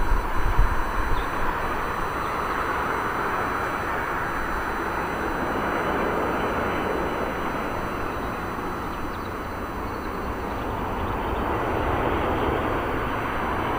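Steady rushing jet noise of an Airbus A380's four engines as the airliner flies low on approach, easing slightly in the middle and building again near the end.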